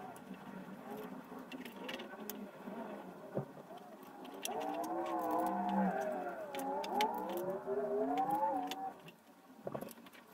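Small screwdriver clicks and scrapes as screws are taken out of a plastic printer carriage to free its small cooling fans. For about four seconds in the middle a louder wavering, voice-like hum drowns them out.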